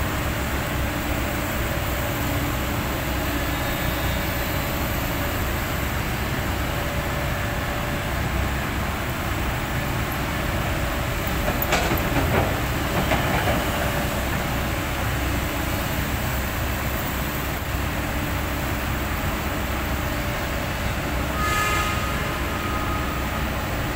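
Heavy construction machinery running steadily, a low engine rumble with a few metallic clanks about halfway through and a brief pitched squeal near the end.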